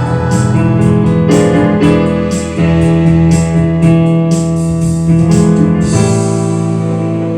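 Electronic keyboard music: held piano-like chords over a light, regular percussion beat that drops out about six seconds in, leaving the chords ringing on.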